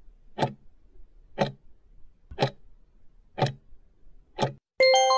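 Clock-ticking timer sound effect: five ticks, one a second, then a bell-like chime near the end, as a countdown for answering a test question runs out.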